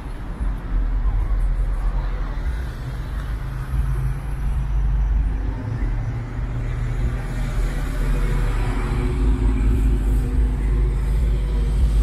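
Car driving slowly along a city street: a steady low engine and road rumble, with other traffic around it, a little louder in the second half.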